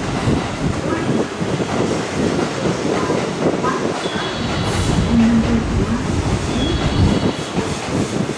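An electric train running through the station, its wheels rumbling and knocking over the rails. Brief high wheel squeals come twice, about four and seven seconds in.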